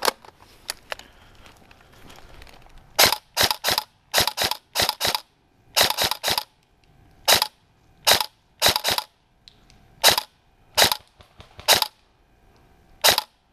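Tokyo Marui SCAR airsoft rifle firing a string of sharp shots, singly and in quick pairs and triplets, about fifteen in ten seconds, starting about three seconds in.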